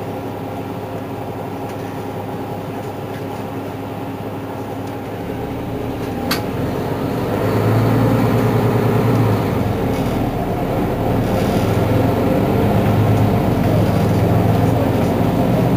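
Mercedes-Benz Citaro G C2 articulated city bus's diesel engine running steadily at idle. A sharp click comes about six seconds in, and the engine grows louder from about seven seconds in and stays loud to the end.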